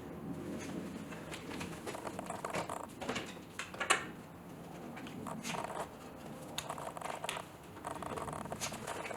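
Scattered handling noises: irregular clicks and taps with rubbing and rustling, the sharpest tap a little before the middle.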